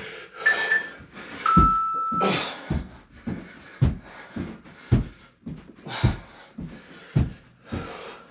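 A workout interval timer gives a short countdown beep, then a longer, lower start beep. After it, a man pants hard while heavy thuds from the exercise land about once a second.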